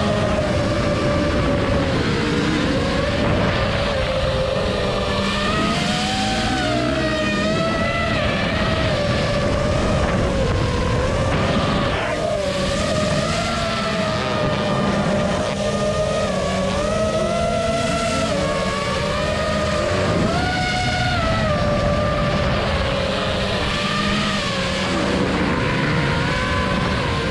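5-inch FPV quadcopter's motors and propellers whining, the pitch rising and falling with throttle, mixed with motocross dirt bike engines revving.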